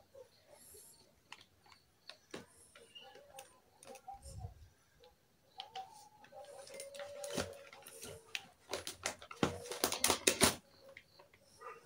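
Small plastic toy dishes handled and set down on a hard tabletop: scattered light clicks and taps, with a dense run of clicking and rattling about nine to ten seconds in.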